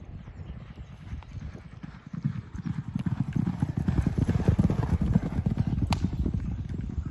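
Two racehorses galloping on a dirt track: rapid drumming hoofbeats that grow louder as the pair comes close about four seconds in, then fade as they move away.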